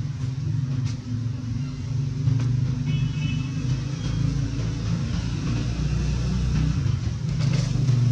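A steady low engine rumble, with a brief faint high chirp about three seconds in.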